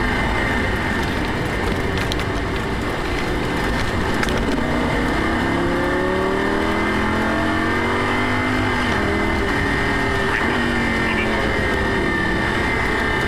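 Lamborghini Gallardo LP560-4's 5.2-litre V10, heard from inside the cabin at track speed. About four seconds in it pulls up through the revs, drops suddenly in pitch near nine seconds as it shifts up, then climbs again. Steady road and wind noise runs underneath.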